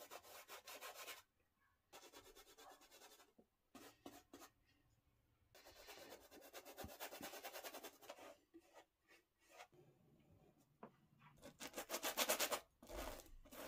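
Paintbrush strokes of oil paint on canvas: scratchy rubbing in bursts of rapid strokes with short pauses between, loudest near the end.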